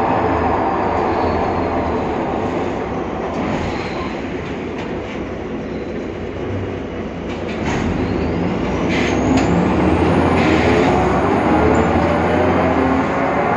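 Inside a BredaMenariniBus Avancity Plus city bus with a Deutz Euro 5 engine and ZF Ecomat 6HP gearbox: the engine runs with a metro-like whine from the differential. About halfway through the bus pulls away, and the whine climbs steeply in pitch as it speeds up, over a few rattles. The whine comes from a differential that the uploader says needs greasing.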